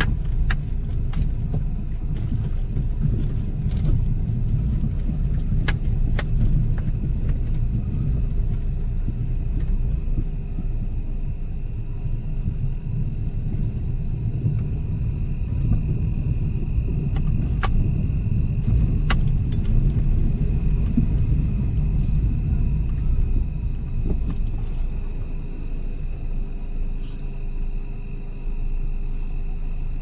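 Car engine running steadily with low road rumble, heard from inside the car, with a few faint clicks.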